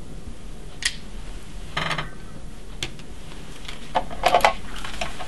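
A few light clicks and taps, then a cluster of plastic clicks and clatter about four seconds in as a corded desk phone's handset is picked up from its cradle.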